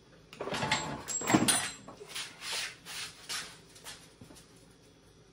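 Kohler engine being lifted out of a zero-turn mower's frame: a rough scraping, clattering noise for about a second and a half, then a run of short rough sounds about every half second while the heavy engine is carried off.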